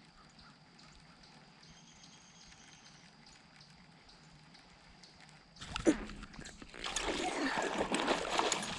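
A northern pike striking a spinnerbait right beside the boat: a sudden loud splash a little past halfway, then continued thrashing and splashing at the surface as the hooked fish fights.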